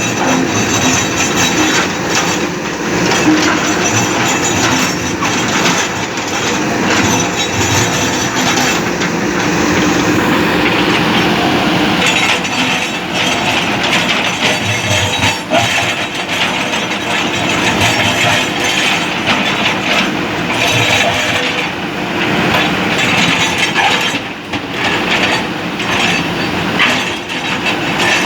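JCB backhoe loaders working: diesel engines running under a dense clatter of metal clanks and knocks from the buckets striking and breaking up the bridge.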